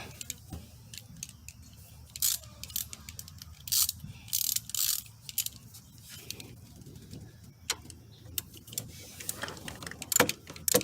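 Hand tools working a bolt on metal: scattered clicks and clinks with a few short ratcheting bursts, as a ground cable is bolted to the engine.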